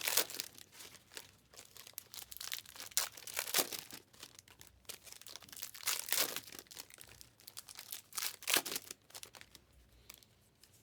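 Crinkly wrapping being handled and torn open, an irregular crackle with a few sharper rips, as at a trading card box break where sealed boxes and foil packs are opened.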